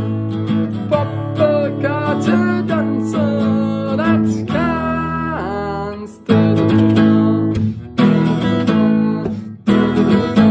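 Acoustic guitar strummed in chords, with a man singing along. In the second half the playing stops briefly three times, each time coming back in with a hard strum.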